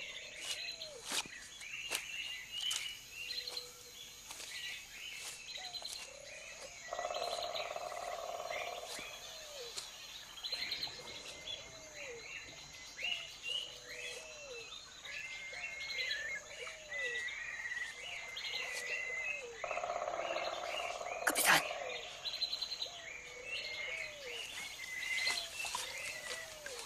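Forest birds chirping and calling, with many short high chirps and a string of short falling calls. Twice a buzzing call lasts two or three seconds, and a single sharp crack comes about three-quarters of the way through.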